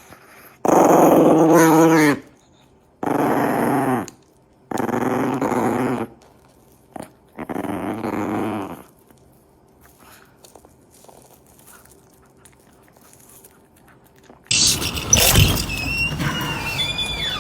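A dog growling in four long, drawn-out vocalizations, each about a second long, with short pauses between them. Near the end a louder, different sound with high gliding squeaks starts suddenly.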